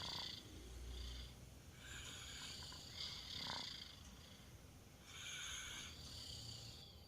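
A two-year-old child snoring faintly in deep sleep: three slow breaths, each an in-breath and out-breath with a soft hiss.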